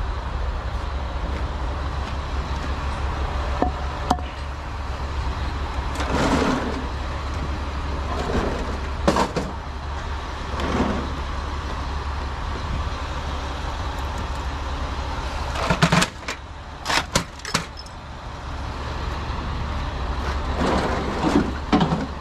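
Clunks, scrapes and clatter of a large stripped metal printer being shifted about on wood with a 4x4, over a low steady hum that drops away about three-quarters of the way in.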